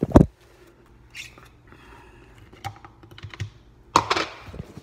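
Handling noise from a phone and a plastic smoothie bottle being moved about. Two loud knocks come at the start and another about four seconds in, with scattered light clicks between them.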